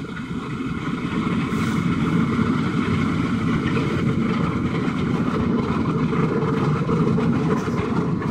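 Automatic car wash running around the car, heard from inside the closed cabin as a loud, steady rushing noise that builds over the first second and then holds.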